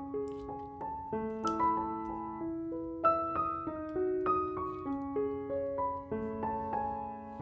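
Background piano music: a melody of separate notes, two or three a second, over held lower notes.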